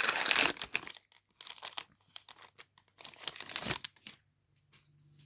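Plastic card-pack wrapper being torn open and crinkled, with dense crackling for the first second, then scattered crinkles that stop about four seconds in.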